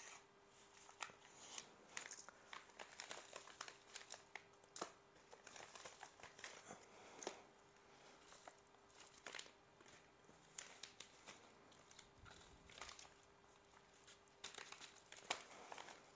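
Faint crinkling and rustling of padded mailer envelopes, white paper ones and a black plastic bubble mailer, handled and shifted by gloved hands, with many scattered sharp crackles. A faint steady hum runs underneath.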